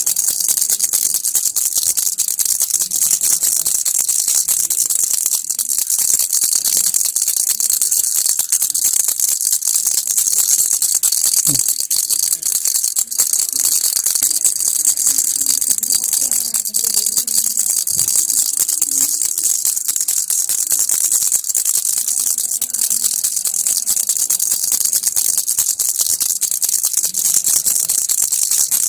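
Baby rattle shaken continuously: an unbroken, dense stream of fine, bright rattling clicks at a steady level.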